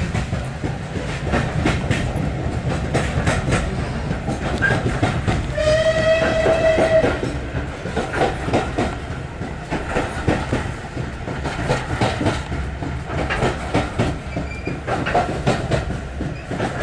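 Steam-hauled railway carriage running, heard from inside: a steady low rumble with frequent clicks and knocks of the wheels over rail joints. About five and a half seconds in, a steam whistle sounds once, a single held note lasting about a second and a half.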